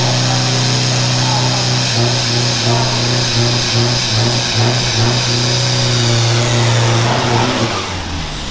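Pickup truck doing a burnout: the engine is held at high, steady revs while the rear tyres spin, the revs wavering in the middle. Near the end the revs drop and a high whistle falls away.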